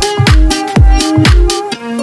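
Background electronic dance music: a kick drum with a falling bass about twice a second under held synth notes. The kick drops out near the end.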